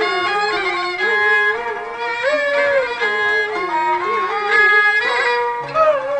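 Instrumental passage of Peking opera accompaniment, with bowed Chinese fiddles such as the jinghu carrying a sliding, ornamented melody over held notes, without singing.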